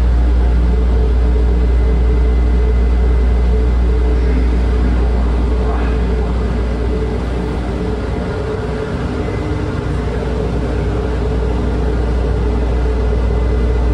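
Airport people-mover train running, heard from inside the car: a loud, steady low rumble with a constant hum and a faint high tone, easing slightly about two-thirds of the way through.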